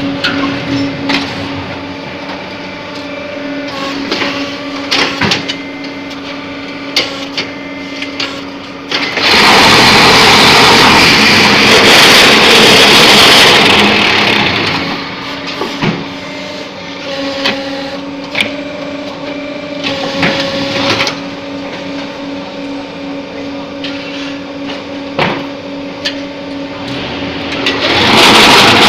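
Multi-block concrete paving block machine running: a steady motor hum with scattered knocks and clanks. About nine seconds in, it turns much louder and noisier for about five seconds, and again near the end.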